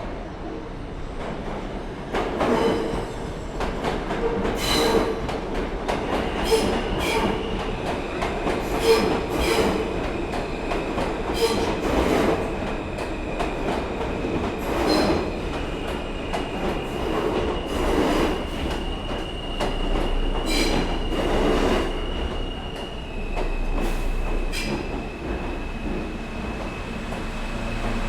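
New York City subway train running through an underground station. The wheels clack over the rail joints, often in pairs, over a steady rumble, while a high wheel squeal holds from a few seconds in. The clacking dies away near the end.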